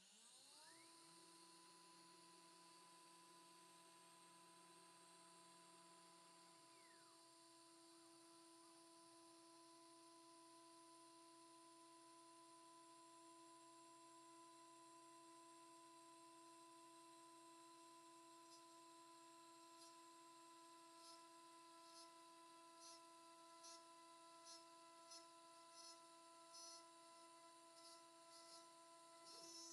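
2.2 kW water-cooled CNC spindle spinning up, its faint whine rising in pitch and settling within about a second into a steady high hum. From about two-thirds in, faint ticks repeat through it.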